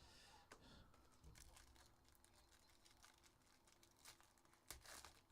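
Near silence, with faint rustling and light clicks of trading cards being handled.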